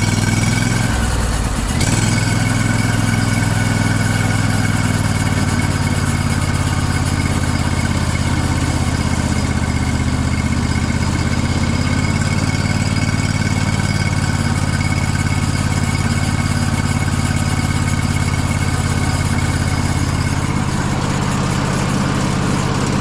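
Sawmill's engine running steadily under test, with a thin, steady high whine from the running drive, while the belt's tracking is checked. The note shifts slightly about two seconds in, then holds even.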